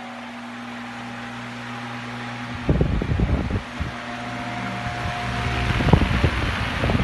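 Ventisol VOC 60 cm pedestal fan running, a steady motor hum under the rush of air. From about three seconds in, its airflow buffets the microphone in rumbling gusts, easing off briefly and returning near the end.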